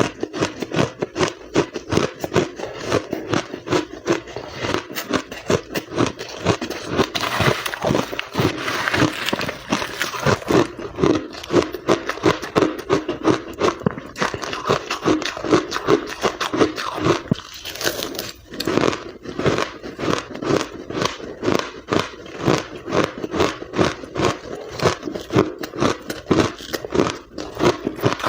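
Close-miked mouth biting and chewing ice, a continuous run of crisp crunches several times a second.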